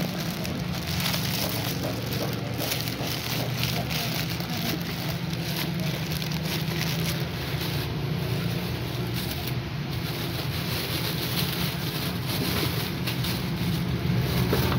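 Steady background noise: a low hum under an even hiss, unchanging throughout.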